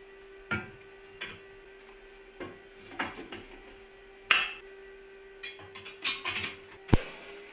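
Magnetic welding squares and steel square tubing clanking as the magnets are set onto a steel frame: a string of separate metallic knocks and clicks, the loudest about four seconds in and just before the end, over a faint steady hum.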